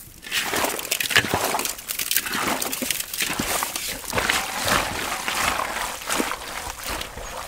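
A hand mixing raw boneless mutton pieces in a large metal pot, the meat coated in crystal salt and ground turmeric paste: wet squelching of meat being turned and squeezed, in quick irregular strokes.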